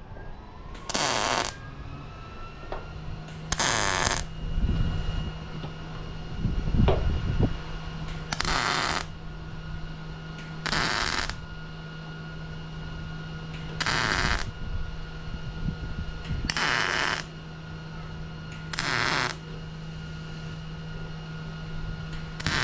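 A welder laying a series of short tack welds along a hood seam: about eight crackling bursts, each under a second, a few seconds apart. A steady low hum runs underneath.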